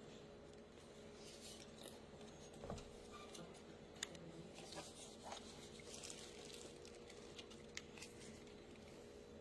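Near silence: faint scattered small clicks and light rustling over a low steady hum, with one sharper click about four seconds in.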